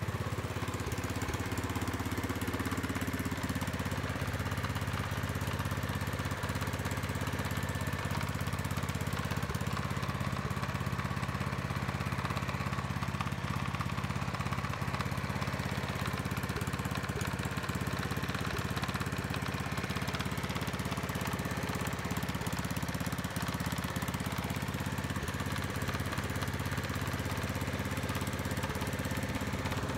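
Kohler engine of a Howard Gem rotavator running steadily at an even speed.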